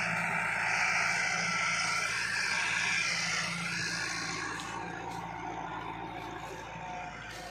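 Massey Ferguson 385 tractor's four-cylinder diesel engine running steadily under load as it pulls a heavy disc harrow through the soil. The steady engine drone grows fainter from about three and a half seconds in, as the tractor moves away.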